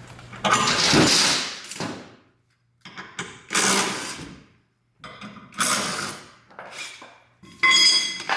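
Four separate metallic clanks and rattles of tools and metal parts, each starting sharply and ringing as it fades; the last one rings clearly.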